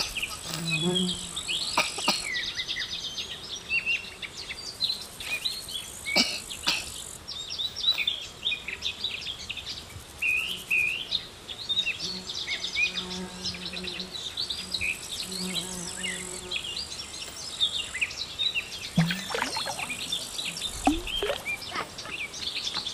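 Outdoor ambience of small birds chirping and twittering all through, with a fly buzzing close by about a second in and again for a few seconds around the middle.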